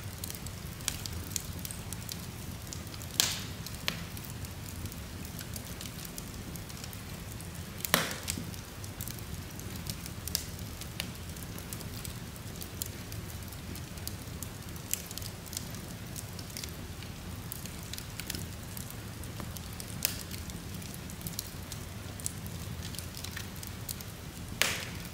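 Wood fire burning in an open fireplace, split logs crackling steadily with many small ticks and a few louder pops: three sharp ones about 3 seconds in, about 8 seconds in and near the end.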